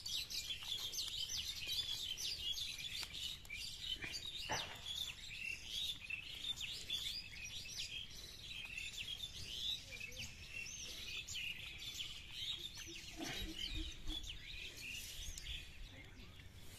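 Many small birds chirping in a dense, continuous chorus, with a couple of soft knocks from handling near the ground.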